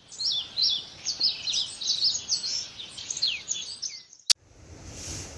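A songbird singing a run of quick, high, downward-sliding chirps. About four seconds in, the song stops and a single sharp click follows, then a faint steady hiss.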